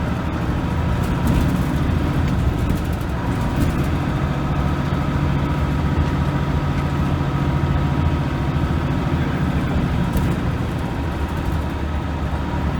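Diesel engine of a Leyland National Mk2 bus running under way, holding a steady pitch with a thin steady whine above it, shifting slightly near the end.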